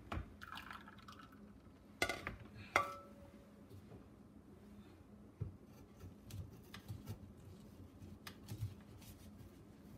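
Kitchenware being handled at the sink: a few knocks and clinks, one about three seconds in ringing briefly, then only faint scattered taps.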